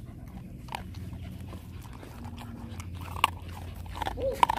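A dog eating dry kibble from a stainless steel bowl: chewing and crunching, with scattered sharp clicks that come thickest and loudest near the end.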